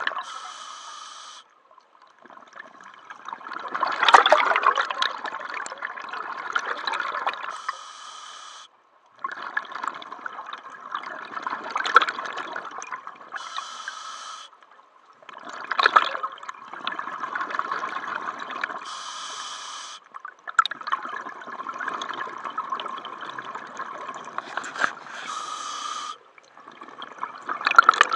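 Scuba diver breathing through a regulator underwater: a short high hiss on each inhale, then a long rush of bubbling exhaust on each exhale. Four breath cycles, about one every five to six seconds.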